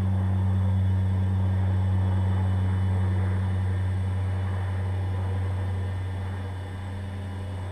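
Hexacopter's six NTM 2826 1000kv brushless motors spinning 9x4.7 nylon-carbon propellers, a steady low drone as it hovers in GPS loiter mode. It grows a little quieter from about six seconds in.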